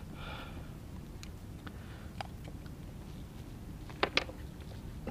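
Light clicks and knocks of fishing tackle being handled while a fish is unhooked on a kayak, with two sharp clicks in quick succession about four seconds in, over a steady low rumble.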